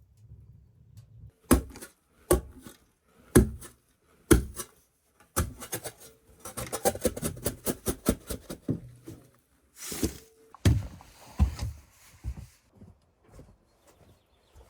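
Wooden knocks and thuds in a small, enclosed room: several separate hard knocks, then a quick run of clattering taps, a short rustle and a few more knocks.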